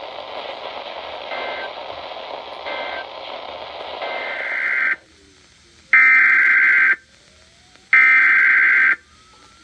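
Radio static, then an Emergency Alert System end-of-message data signal: three one-second bursts of buzzing two-tone digital data, about a second apart, the line going quiet between them.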